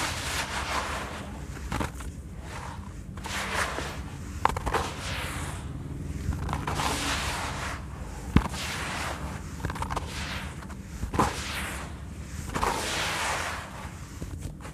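Charcoal sand cement mix being crumbled by hand and dropped back into the tub in handfuls, a gritty crunching and rustle of falling crumbs that swells every second or two, with a few sharp clicks among it.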